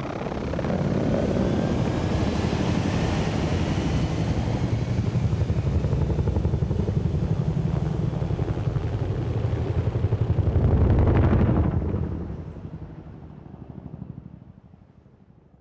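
Military helicopters' rotors chopping steadily, with a faint rising whine in the first few seconds. The sound swells to its loudest about eleven seconds in, as a helicopter passes close, then fades away.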